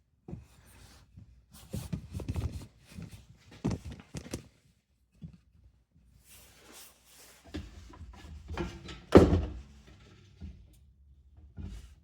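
Irregular knocks, clicks and rattles of a box fan's housing and parts being handled during disassembly, with the loudest knock about nine seconds in.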